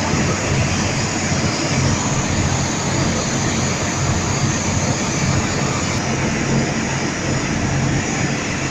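A boat's engine running steadily with a low hum, under the constant rush of wind and water.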